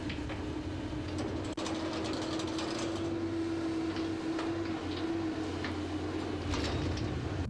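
Machinery running with a steady hum and a low rumble, with irregular metallic clicks and clanks throughout; the rumble drops away near the end.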